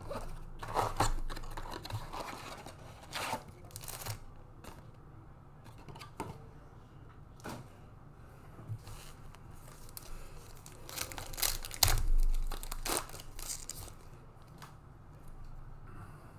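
Panini Mosaic trading-card blaster box and foil card packs being torn open by hand: a series of short rips and crinkles of foil wrapper, the loudest about twelve seconds in.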